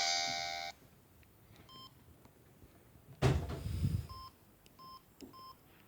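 Samsung SGH-X210 mobile phone: the last held notes of a ringtone stop under a second in, followed by short keypad beeps as keys are pressed, once and then three quick beeps near the end. A dull thump in the middle is the loudest sound.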